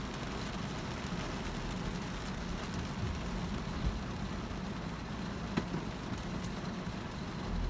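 Rain falling on a car, heard from inside the cabin as a steady hiss over the low hum of the car, with a windshield wiper sweeping across once about four seconds in. Two short sharp taps stand out, about four and five and a half seconds in.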